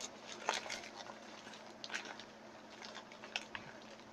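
Faint, scattered rustles and light clicks of a donut's packaging being opened and handled while a piece is broken off.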